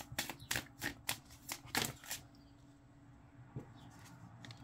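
A deck of tarot cards being shuffled by hand: a quick run of sharp card clicks for about two seconds, then a few faint taps.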